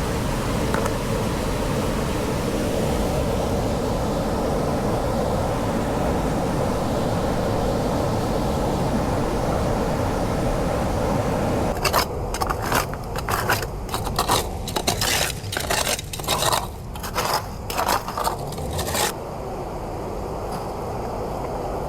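A stream flowing steadily. About twelve seconds in it gives way suddenly to a run of short, gritty scraping strokes, sand and gravel being worked in a gold pan, lasting about seven seconds before settling to a quieter wash.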